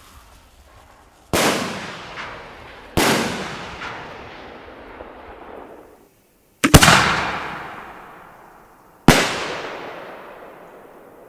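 Homemade aerial ball shells going off: four sharp bangs, each followed by a long echoing tail that fades over a couple of seconds. The third bang is the loudest.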